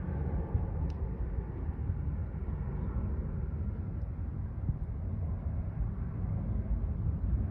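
A steady low rumble of outdoor background noise, unsteady in level but with no distinct events.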